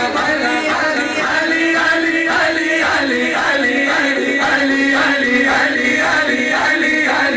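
A man singing a devotional song into a microphone, in a chant-like line of evenly repeated phrases.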